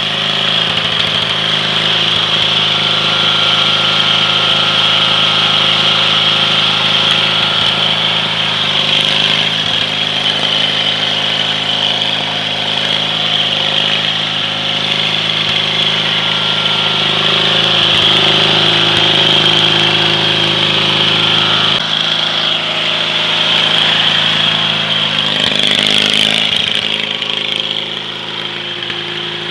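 Lawn tractor's small engine running steadily as the tractor spins its chained rear wheels through mud and snow, its level swelling and easing slightly now and then.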